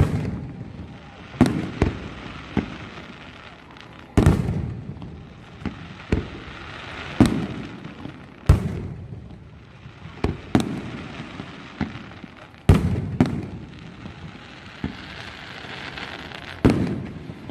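Fireworks display: aerial shells bursting with sharp bangs, one every second or two, with a steady hiss between the bangs.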